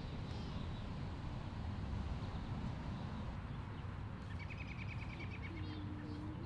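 Outdoor park ambience: a steady low rumble of distant traffic, with a bird singing a quick trill of chirps a little past the middle and a short low steady tone near the end.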